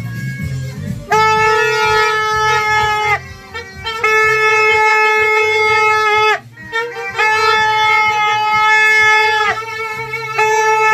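Plastic party horn blown in long, steady, buzzy blasts on one pitch: three held notes of about two seconds each with short breaks between, and a fourth starting near the end.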